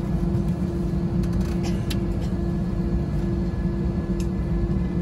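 Steady cabin drone of an Airbus A320 heard from a passenger seat, with a constant hum running under it.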